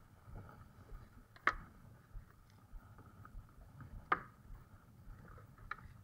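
Two sharp knocks about two and a half seconds apart, then a fainter click near the end, over a low steady rumble.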